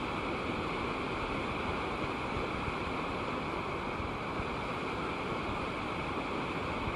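Rushing water of a rocky stream cascading over boulders, a steady even rush.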